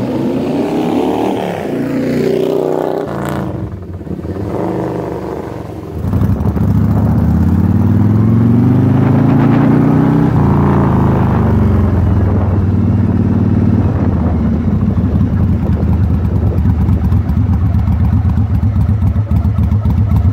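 1988 Yamaha Virago 1100's air-cooled V-twin engine under way, its carburettors freshly synchronized. The engine note rises and falls in pitch, then about six seconds in gets louder and climbs as the bike accelerates. It drops back about ten seconds in and runs steadily after that.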